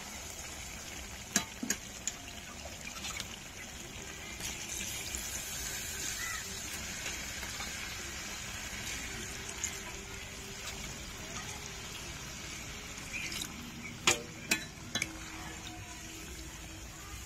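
Chicken curry sizzling in a pan of oil and spice paste, with a spatula stirring it, a steady hiss. The spatula knocks against the pan twice about a second in and several times near the end.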